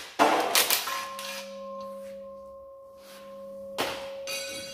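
Metal tools clanking, then a struck piece of metal ringing with a clear, steady tone for about three seconds. A second clank about four seconds in cuts most of the ringing short, and light metal clatter follows.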